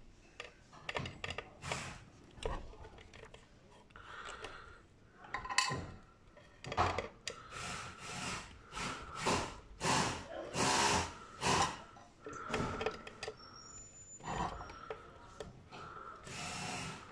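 Hand screwdriver scraping and grinding in irregular bursts as it turns out the small screws holding a circuit board inside a metal stage-light housing, with rubbing from the board and wires being handled.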